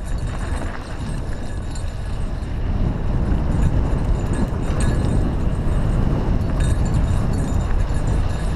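Mountain bike rolling fast down a dirt singletrack, with wind rushing over the on-bike camera's microphone, tyre noise on the dirt, and light rattling of the bike over the rough trail; it gets a little louder about three seconds in.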